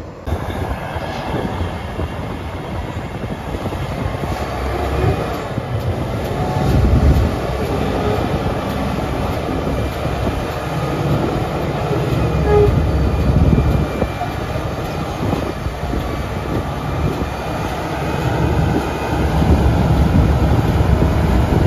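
Sugarcane-train diesel locomotive Tully-3 running slowly past close by with its cane bins: a steady, heavy engine rumble mixed with rolling wheel and wagon noise. It grows louder towards the end as the locomotive draws level.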